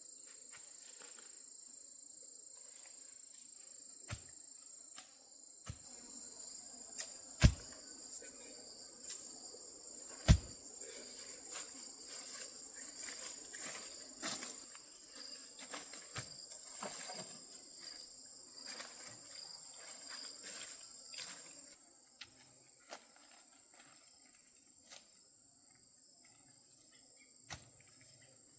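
Insects, crickets or cicadas, chirring steadily in one high tone throughout. Over it come scattered clicks and rustles of handling or footsteps, and two sharp knocks, the loudest sounds, roughly a quarter and a third of the way in.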